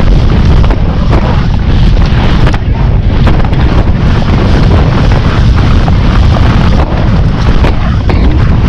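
Loud, steady wind buffeting on the microphone of a camera carried by a rider at full gallop, with a few sharp knocks.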